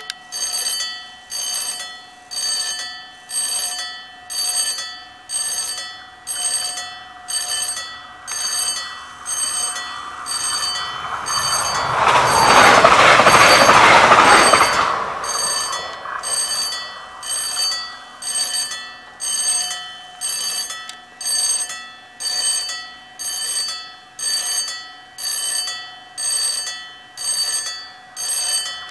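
Level-crossing warning bells ring in short, evenly repeated strokes about once a second. The two electric bells keep going while the display warns that two trains are coming. About halfway through, an SBB Seehas train passes over the crossing: its noise swells for a few seconds, drowns out the bells, then fades.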